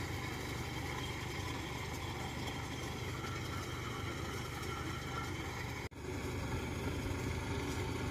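Engine of a tracked rice-carrying farm tractor idling steadily while the tractor stands being loaded. The sound cuts out for an instant about six seconds in.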